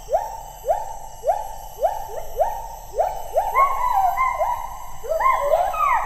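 Rainforest animal calls: a series of rising whoops, about two a second, with a second, higher caller joining about halfway, over a steady high-pitched hum.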